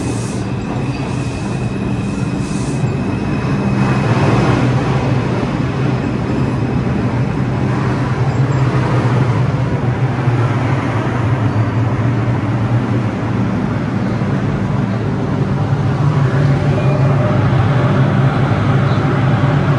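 New York City subway train rolling along the platform and braking to a stop, with a steady low rumble and hum. A thin high wheel squeal is heard in the first few seconds.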